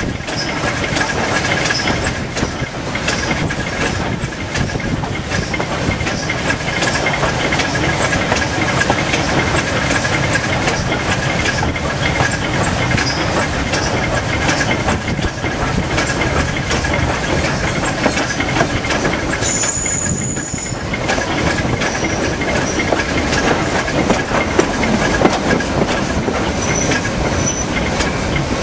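Steam train running downhill behind S&DJR 7F 2-8-0 locomotive No. 53808: a steady rumble of wheels on rail with clickety-clack over the rail joints and a hiss of steam.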